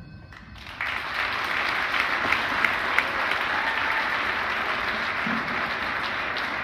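Crowd applauding in a gymnasium, the clapping starting suddenly under a second in and then holding steady, with single sharp claps standing out.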